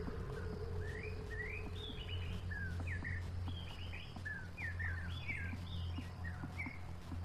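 Several birds chirping, with many short rising and falling notes that overlap one another, over a steady low hum.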